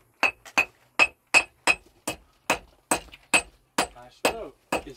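A hammer striking steadily, about a dozen blows at roughly two and a half a second, each with a short metallic ring.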